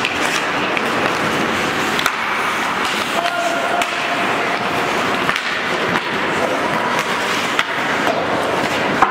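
Ice hockey skates scraping and carving on rink ice, with scattered sharp clacks of sticks and puck and occasional shouts from players.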